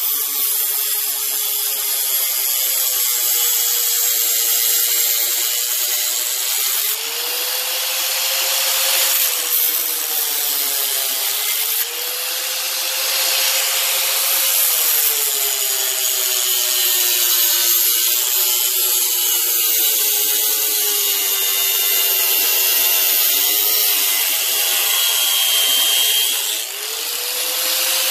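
Angle grinder with a cutoff wheel cutting a polycarbonate mirror sheet, the wheel melting its way through the plastic. The motor's whine sags in pitch as the wheel bites in and climbs back when it comes free, several times, over a steady hiss from the cut.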